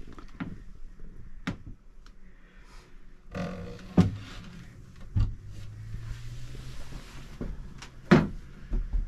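Knocks and thunks of cabin lockers and hatches being handled inside a sailboat's small cabin. There are about four sharp knocks, the loudest about four and eight seconds in, and a low hum for a couple of seconds in the middle.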